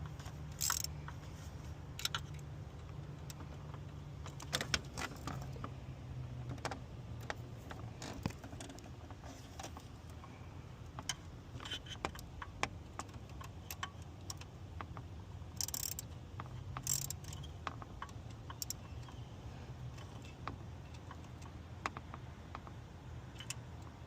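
Scattered metallic clinks and ticks of hand tools working on coolant hoses and their clamps, a few louder clinks about 5 s, 16 s and 17 s in, over a steady low hum.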